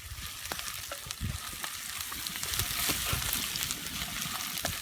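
Aromatics sizzling in hot oil in a wok: a steady hiss with scattered small pops and crackles.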